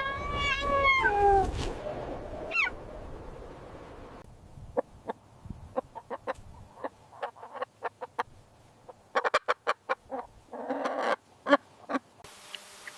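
Chickens: a pitched call of several short notes stepping down in pitch at the start, followed by a long run of short, sharp clucks and clicks.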